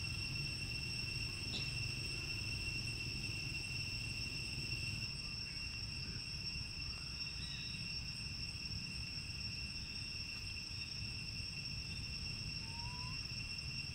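Steady, unbroken high-pitched drone of insects, over a low rumble.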